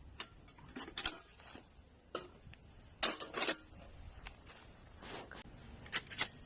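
Metal parts of a portable folding steel fire pit clinking and clattering as it is handled, with a few separate sharp knocks and a short cluster of clanks about three seconds in.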